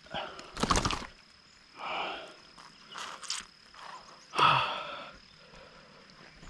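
A person breathing hard in short, breathy huffs about a second apart, the loudest about four and a half seconds in, while fighting a hooked bass.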